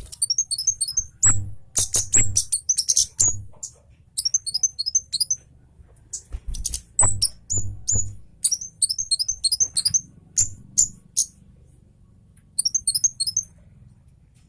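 Kemade cabe Jawa songbird singing in fast bursts of rapid, very high-pitched chirps, with several sharp clicks mixed in.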